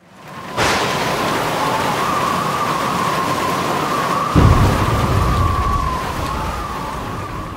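Rain and thunder sound effect under a logo intro: a steady rain hiss that starts sharply about half a second in, with a steady tone running through it, and a deep thunder rumble coming in a little past the middle, then fading out.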